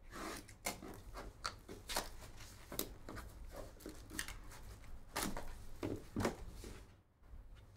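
Plastic wrapper being torn and crinkled off a sealed trading-card box, and the cardboard box being slid open and handled: a busy run of crackles, rustles and light knocks that dies down near the end.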